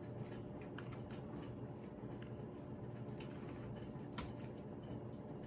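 Kitchen shears cutting through a rotisserie chicken to take off the leg: faint scattered snips and clicks, with one sharper click about four seconds in, over a steady low hum.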